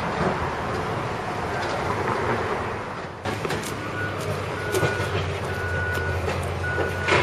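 A heavy vehicle's backup alarm beeping about once a second while it reverses, over a steady low engine hum; before that, about three seconds of steady outdoor noise that cuts off suddenly.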